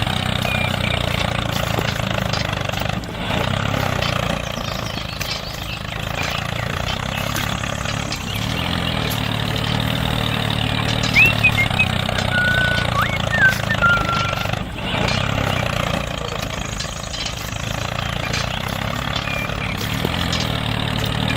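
Small engine of a miniature model tractor running steadily, with a few short high chirps about halfway through.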